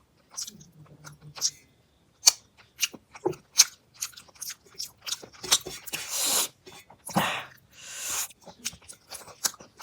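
Close-up chewing and mouth clicks of a person eating fish curry and rice, with a few longer hissing sounds between about six and eight seconds in.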